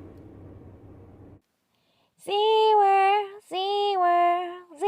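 Faint background noise cuts off about a second and a half in. After a short silence, a high voice sings three long, steady held notes with brief breaks between them.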